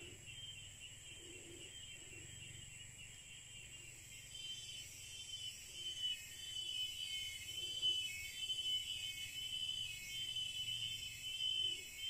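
A chorus of forest insects: a dense, steady high-pitched trilling with a thin, even whine above it, growing louder and more uneven after about four seconds.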